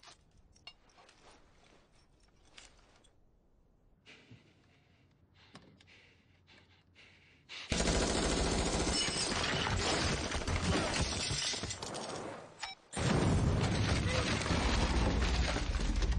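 Faint clicks and rustles of handguns being handled, then about eight seconds in a sudden outbreak of sustained, dense gunfire. It breaks off briefly near thirteen seconds and starts again.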